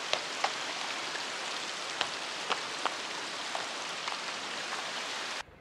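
Rushing water: a steady hiss with a few sharp splashing clicks, cutting off suddenly near the end.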